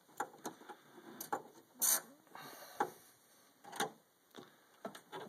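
Irregular clicks and knocks of parts being handled as an assembly is worked loose inside a DLP projection TV, the loudest knock about two seconds in.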